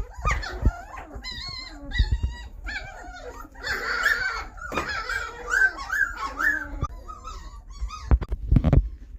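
Doberman puppies whining and yipping in short, high squeals that bend up and down in pitch, several at once, with a few dull bumps mixed in.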